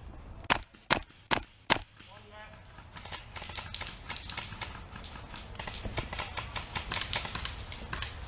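Four sharp airsoft gunshots in quick succession, about two a second, then a long run of fainter rapid clicks and snaps of airsoft fire.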